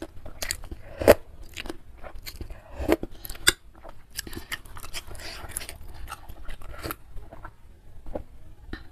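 Close-miked eating of beef meatballs and noodles in soup: chewing with many small wet mouth clicks, and two louder sharp sounds about a second in and three and a half seconds in.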